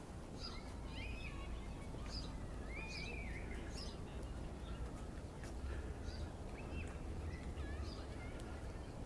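Birds chirping and calling, a scatter of short chirps and a few arching calls, over a steady low background noise.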